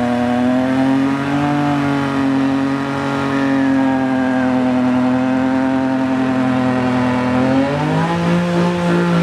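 Car engine held at high revs during a burnout, running steadily, then stepping up in pitch near the end.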